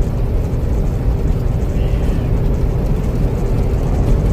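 Steady low engine and road drone inside a semi truck's cab while driving.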